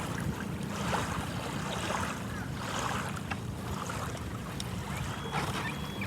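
Wind buffeting the microphone over surf washing onto a beach, a steady low rumble. A few short high calls come in near the end.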